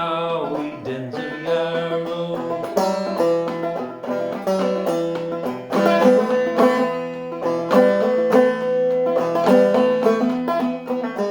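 Long-neck five-string banjo played clawhammer style in a low eBEGB tuning: an instrumental break of plucked melody notes over one ringing note that keeps sounding underneath.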